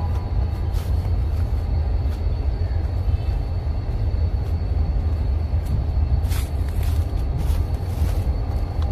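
Steady low rumble of a standing Korean-built diesel locomotive idling, with a few light clicks or knocks about six to eight seconds in.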